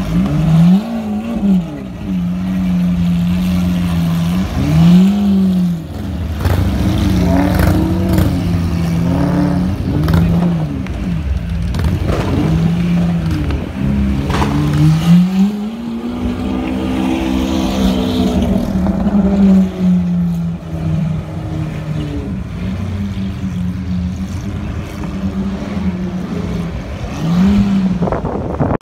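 Lamborghini Aventador LP700-4's V12 breathing through an Armytrix header-back valvetronic exhaust, idling with a string of short throttle blips that rise and fall quickly. About halfway through, one longer rev climbs, holds and falls back to idle.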